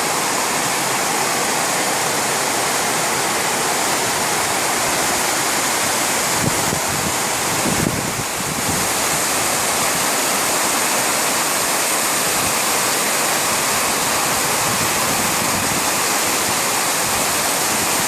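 Torrential rain pouring down heavily in a steady, dense hiss, with a brief low rumble about seven seconds in.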